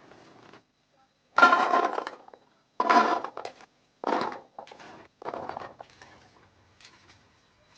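Softened Indian gooseberries (heikru) being mashed in a bowl: four loud, uneven crushing strokes, with fainter ones trailing off near the end.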